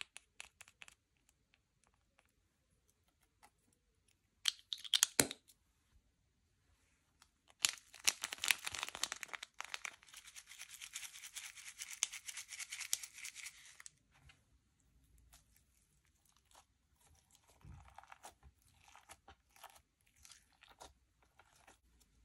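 Slime being worked by hand, giving scattered clicks and crackles. A short burst of crunching comes about five seconds in. About eight seconds in, about six seconds of dense crackling begin, and sparse crackles follow.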